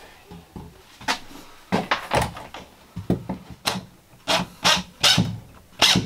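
Handling noise while working on a wooden wiring board: a run of short knocks, scrapes and rustles from hands and a hand tool, sparse at first and coming faster and louder in the second half.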